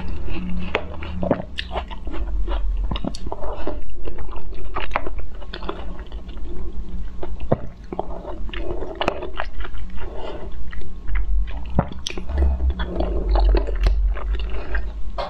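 Close-miked eating: chewing and biting with wet mouth sounds and many sharp clicks and crunches, over a faint steady low hum.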